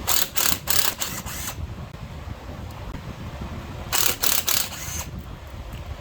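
Hand ratchet wrench clicking in two short runs of strokes, one at the start and another about four seconds in, as a fastener is turned.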